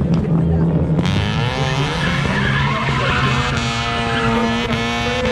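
A car spinning donuts: the engine is held at high revs while the tyres squeal and skid on the pavement, the squeal starting about a second in.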